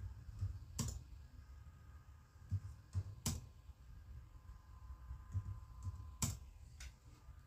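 Computer keyboard keys tapped now and then: three sharp clicks about two and a half seconds apart, with a few softer ones between, over a faint low hum.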